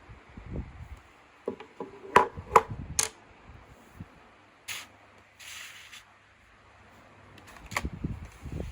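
Handling noises: a quick cluster of sharp clicks and knocks, then a single click and a short hiss of air a few seconds later.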